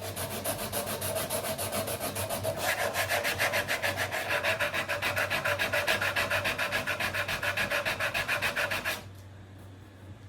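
Sandpaper rubbed by hand over the aileron's wood in quick, even back-and-forth strokes, several a second. The strokes stop about nine seconds in.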